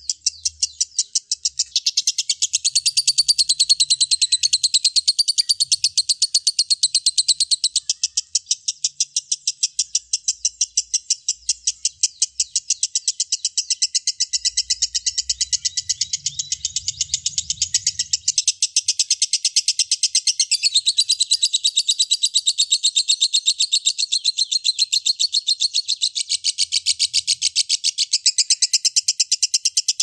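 Lovebird singing a long, unbroken chattering song of rapid high chirps, several a second, running on without a pause.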